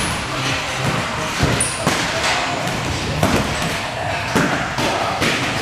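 Boxing gloves striking: irregular sharp thuds and slaps, about six of them, spaced half a second to a second apart.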